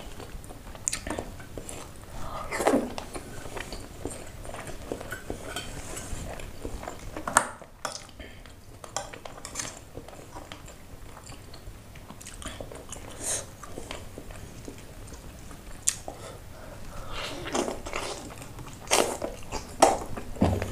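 Close-up eating sounds: chewing and mouth noises as noodles are eaten, with scattered sharp clinks of a metal fork and spoon against a ceramic bowl and a stone plate.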